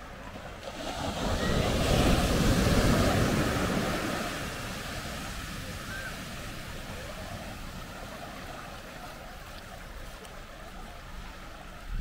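Small surf waves breaking and washing up the sand. The wash swells about a second in, is loudest over the next two seconds, then fades back to a steady, softer surf.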